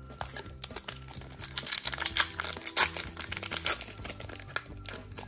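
Foil wrapper of a Pokémon trading card booster pack crinkling and tearing as it is ripped open by hand, a dense crackle through most of the stretch, over steady background music.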